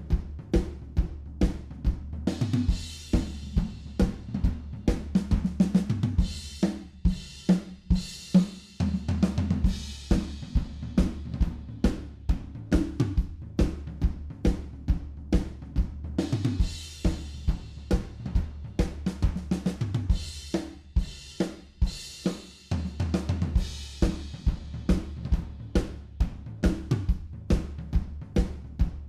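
Live drum kit playing a fast, busy drum-and-bass groove of kick, snare, hi-hat and cymbal crashes, over sustained low bass notes.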